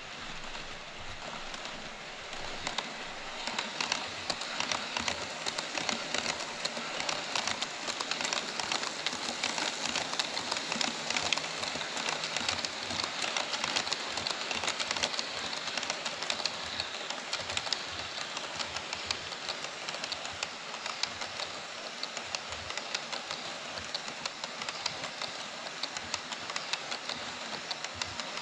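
HO scale model freight train, tank cars then container wagons, rolling past on Kato Unitrack: a rapid, steady clatter of small metal wheels clicking over the track, growing louder about two to three seconds in as the wagons reach the close side of the viaduct.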